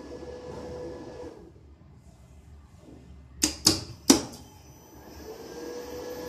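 Lift control-cabinet contactors in a Monarch controller clacking three times in quick succession, about three and a half to four seconds in, as the drive is switched to run the lift in inspection mode. The drive's steady hum drops away a second or so in and starts again after the clacks.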